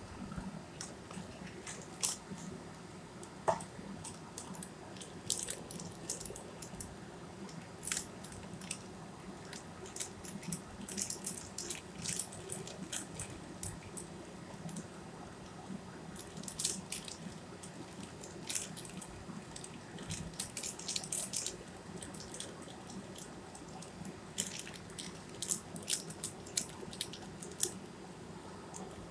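Short, scattered crackles and clicks from handling a foil spice-mix sachet and a spoon as masala powder is sprinkled over raw fish in a plastic bowl, over a steady low hum.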